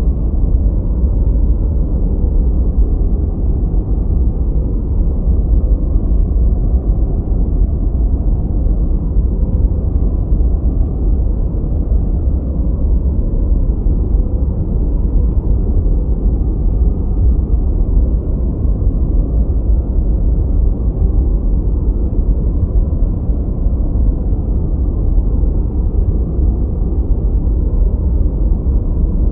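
Steady noise track for studying, sold as white noise but deep and muffled like brown noise: an even rumbling hiss with no events or changes.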